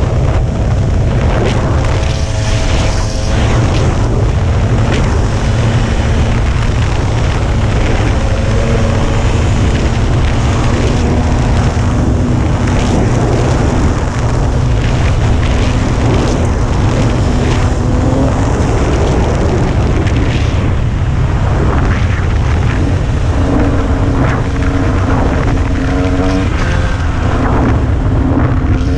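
Dirt bike engine running under way on a dirt trail. Its pitch slowly climbs and falls as the throttle changes, with more frequent rev changes near the end, over a constant low rumble.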